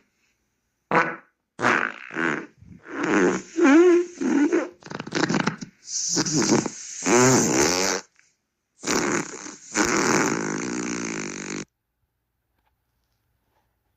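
Fart sound effect: a string of about seven fart noises, some short sputters and some longer with a wavering, bubbling pitch. The last two are long and have a hissing edge.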